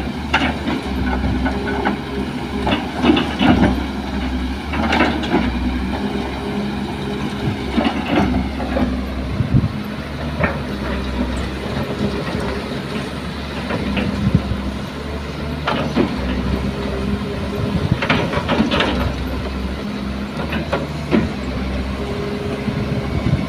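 Kobelco hydraulic excavator digging soil: its diesel engine runs steadily, its pitch shifting up and down as the hydraulics take load, with several sharp metal clanks and knocks from the bucket and boom linkage.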